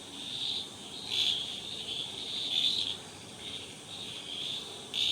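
High-pitched insects chirping in a steady chorus, swelling and fading in waves about once a second.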